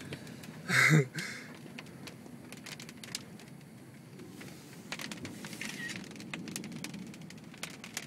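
Storm wind driving sand and rain against a truck, heard from inside the cab as scattered ticking and pattering over a low steady rumble. A brief loud noise stands out about a second in.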